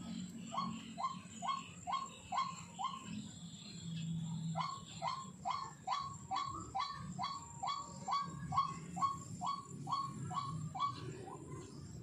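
White-breasted waterhen calling: a monotonous series of short, rising 'kru-ak' notes, about two to three a second. The calls pause briefly about 3 seconds in, then run on faster for about six seconds.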